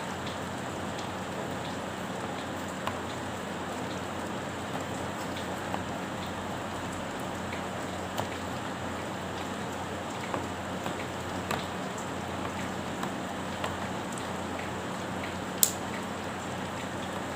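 Steady rain-like hiss with scattered faint clicks and one sharp click near the end: an RJ45 plug being crimped onto UTP network cable with a hand crimping tool.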